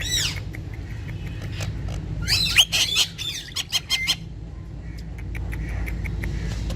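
Ringneck parrots calling: a single arched call at the start, then a burst of squawks and chirps with quick pitch glides about two seconds in that lasts about two seconds. Sharp clicks are scattered throughout, over a steady low hum.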